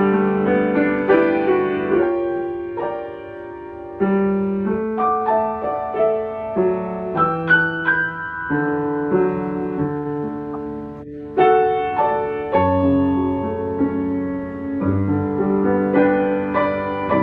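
Piano playing a slow piece of music, melody notes and chords struck in phrases, with short lulls between phrases.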